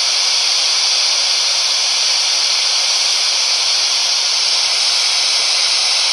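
Steady radio static hiss from a ghost-hunting spirit box scanning the radio frequencies, picking up nothing but the static.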